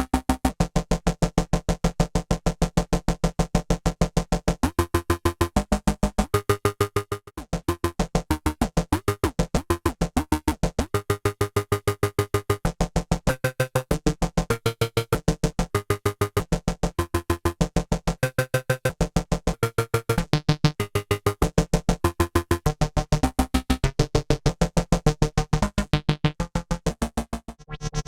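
EDP Wasp monophonic analogue synthesizer playing a fast, evenly pulsing note pattern, the pitch stepping to new notes every second or so, with a brief break about seven seconds in.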